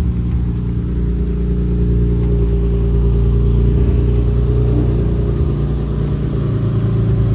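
A freshly swapped car engine running steadily, with no bad sounds to be heard from it, its tone shifting slightly about five seconds in.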